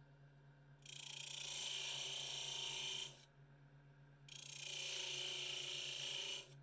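Thin steel blade scraping into a spinning wooden ring blank on a lathe, parting off the rings: two cuts of about two seconds each, over the steady low hum of the running lathe.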